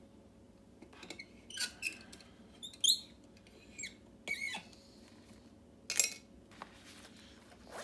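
Bench vise being clamped on a lock cylinder: several short squeaks that slide up and down in pitch, with a few light knocks and a sharp click about six seconds in.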